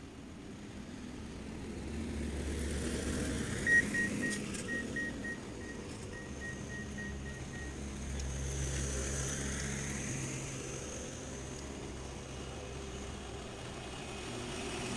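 Rail maintenance-of-way track machines running past, their engines swelling and fading twice as they go by. About four seconds in, a string of short electronic beeps sounds for about four seconds.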